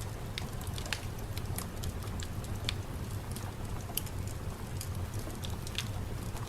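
Steady rain, with a low rumble underneath and scattered sharp crackling ticks, a few each second.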